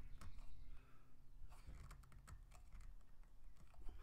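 Faint, irregular plastic clicks and taps from hands working the multiport valve on top of a sand filter tank. A low steady hum underneath drops away partway through.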